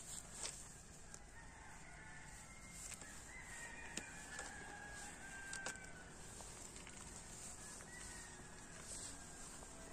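A rooster crowing, with a few sharp pops from a small wood fire crackling.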